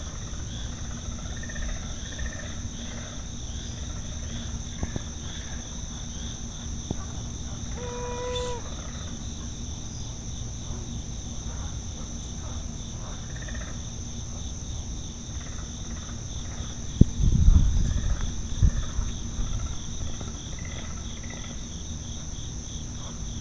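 Night chorus by a swamp: a steady, high-pitched trill of insects, with scattered short gurgling calls from an unidentified animal that the recordist says is not a local frog. One brief tone sounds about a third of the way in, and a low rumble passes about two-thirds of the way through.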